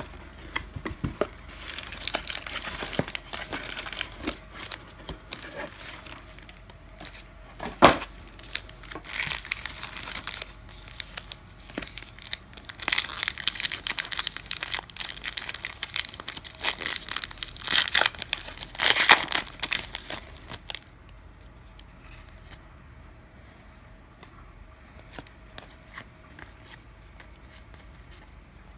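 A trading-card pack wrapper being torn open and crinkled in the hands, with one sharp tap about eight seconds in and the loudest crinkling a little past the middle. The crinkling stops about two-thirds of the way through.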